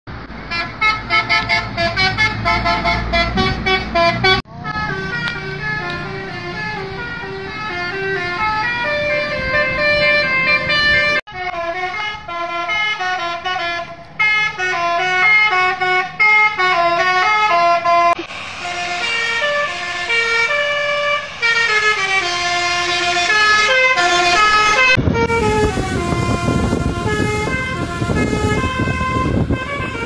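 Tour buses' 'basuri' musical horns playing quick tunes of stepped notes, in a run of separate clips that cut off abruptly every few seconds. A bus engine's low rumble sits under the horn in some clips.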